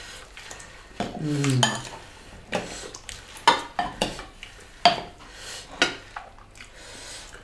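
Metal serving utensils clinking and scraping against a glass salad bowl and a ceramic bowl as salad and dal are served, in a scattered series of sharp clicks.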